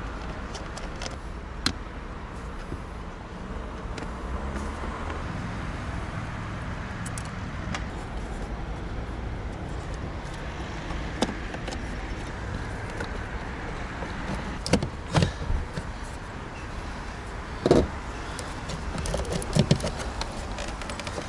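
Scattered clicks and knocks of hand tools and plastic parts as an automatic satellite dish's motor housing is taken apart, with a cluster of louder knocks in the second half, over a steady background of car traffic.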